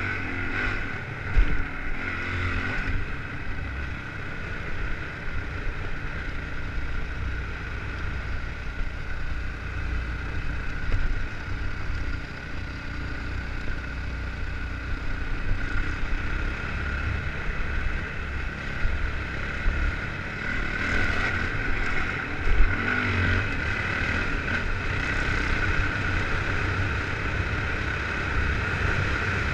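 Dirt bike engine running steadily while riding, with wind rumbling on the microphone.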